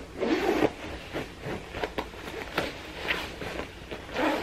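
Nylon down jacket and its faux-fur hood rustling close to the microphone as the coat is put on and closed, in a string of short swishes and scrapes, the loudest near the start.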